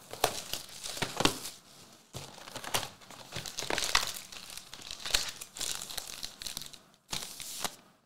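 Clear plastic shrink-wrap being torn off a card box and crumpled in the hand: an irregular run of crinkles and crackles, with a short pause near the end.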